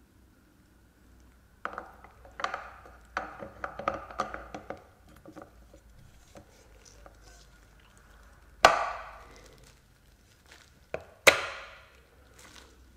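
Steel parts of a ZF 6HP26 transmission's A-clutch drum and planetary gear set clinking and rattling as they are handled and fitted together. Two loud sharp metallic clacks follow, a few seconds apart, each ringing briefly.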